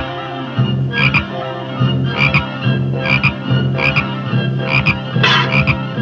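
Cartoon soundtrack: a low held note under short rasping pulses that come about once a second.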